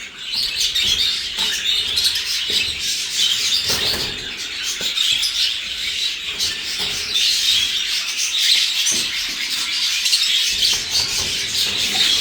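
Budgerigars chattering and chirping continuously, many birds at once, with a few short knocks.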